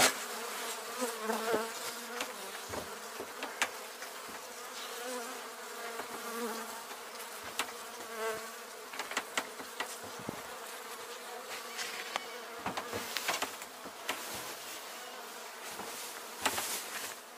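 A honeybee colony in its winter cluster buzzing steadily inside an opened hive, with the hum wavering slightly. Scattered knocks and rustles come from the wooden hive top and its cover being handled.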